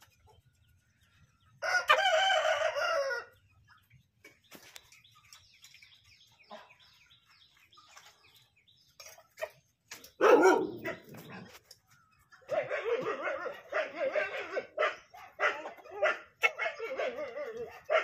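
A rooster crows once, about two seconds in, a single call of under two seconds. A loud knock comes about ten seconds in, and a long run of chicken calls fills the last few seconds.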